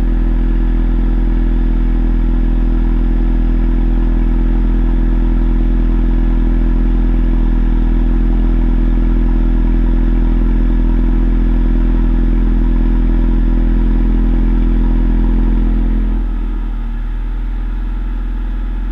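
A 2017 Ford Mustang's 2.3-litre EcoBoost turbo four-cylinder idling after a cold start, heard through a Ford Performance Borla axle-back exhaust as a steady drone. About sixteen seconds in the idle drops in pitch and gets a little quieter.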